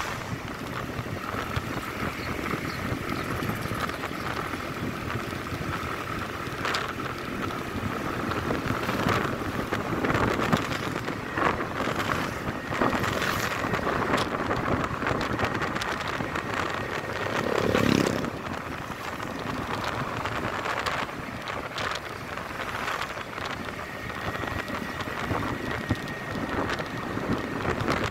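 Motorcycle riding on a paved road: engine and tyre noise under wind buffeting the microphone, with a brief louder rush about eighteen seconds in.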